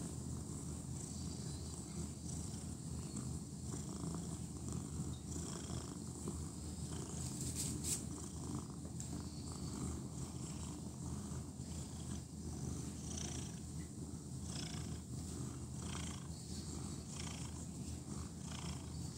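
Domestic cat purring steadily as it is stroked, with one brief sharp click about eight seconds in.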